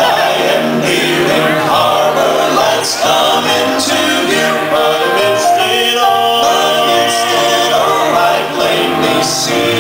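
Female vocal quartet singing a gospel hymn-style song into handheld microphones, several voices holding long notes together.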